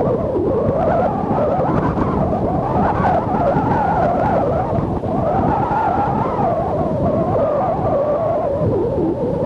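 Strong wind howling, a wavering moan that slowly rises and falls in pitch, over a steady rush of surf.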